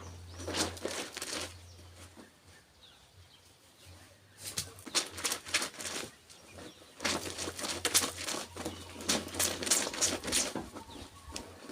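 Wet clothes being handled while washing laundry by hand: three irregular spells of swishing and slapping, with quiet pauses in between.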